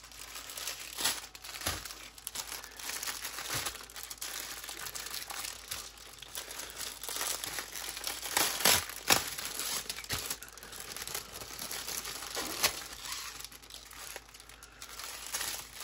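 Plastic packaging crinkling as hands handle strips of small bagged diamond-painting drills and pull them from a clear plastic bag, with irregular crackles and a few sharper clicks.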